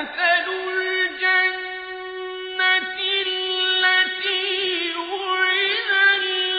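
A man reciting the Quran in Arabic in the melodic tajwid style. The voice starts suddenly from silence and holds long high notes, then bends them into ornamented runs a few seconds in.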